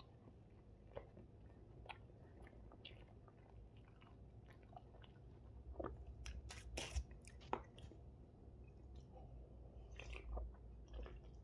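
Faint chewing and biting on a thin-crust pizza slice: small wet mouth clicks and a few crisper bites, louder a little past halfway. Near the end comes a sip from a drink can.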